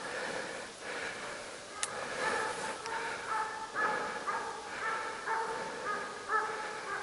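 Young scent hounds giving tongue on a raised hare's trail: a string of repeated, drawn-out baying yelps, several a second. A single sharp click comes about two seconds in.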